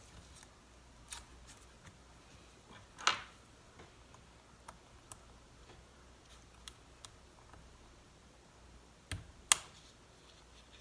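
Sparse small clicks and light taps of tools and small parts being handled on an opened laptop, with a louder knock about three seconds in and another near the end.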